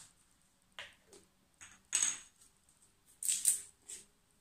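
Spice jars and a measuring spoon being handled: a handful of short clinks and knocks, with the loudest, a brief rattle, about three seconds in.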